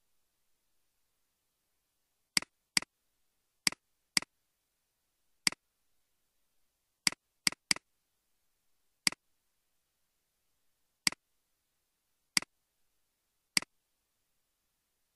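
Computer mouse button clicks: about a dozen sharp clicks, each a quick press-and-release, at irregular intervals with a quick run of three about halfway through. Silent in between.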